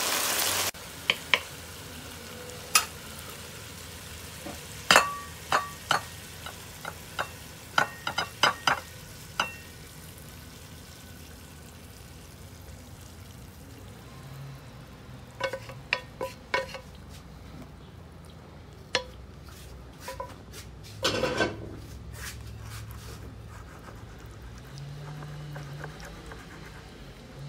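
A spatula clicking and scraping against a nonstick wok of ground pork and tofu: a brief sizzle at the very start, a run of sharp irregular clicks in the first ten seconds, more clicks in the middle, and a longer scrape as the food is scraped out of the tipped wok onto a plate.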